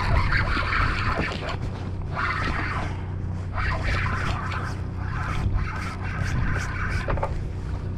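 Spinning reel being cranked in spurts, a scratchy whirring that comes and goes about four times, over the boat's steady low hum.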